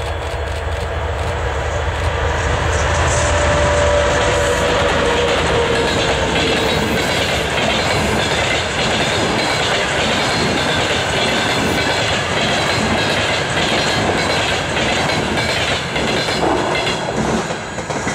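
TEP70BS diesel passenger locomotive passing at speed. Its engine gives a deep rumble, and a tone falls in pitch as it goes by about four seconds in. The rush of wheel and coach noise from its long train of passenger carriages follows, dropping away near the end as the last coach passes.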